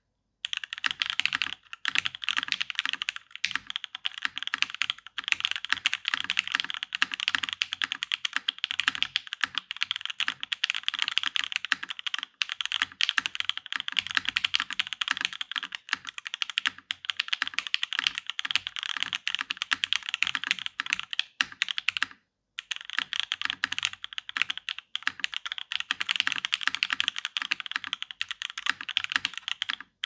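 Fast, continuous typing on a Daji Ocho Cuatro TKL custom mechanical keyboard with a top-mounted aluminium plate, lubed and filmed JWK Alpaca V2 linear switches and GMK keycaps: a dense stream of keystrokes with one short break about three-quarters of the way through.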